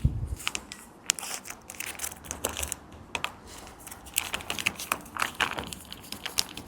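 Packets of cat food being handled and rummaged through, with plastic crinkling and a quick, irregular patter of small clicks and taps.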